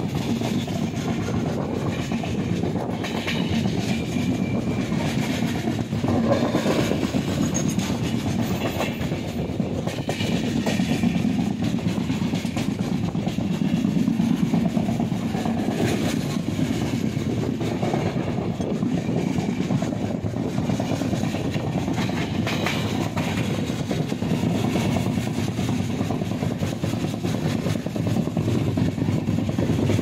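Passenger train running at speed, heard from inside the coach: a steady rumble of wheels on rails, with a few faint clicks as the wheels pass over rail joints.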